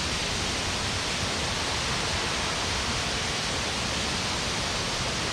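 Steady, even rush of a large waterfall, with no breaks or changes.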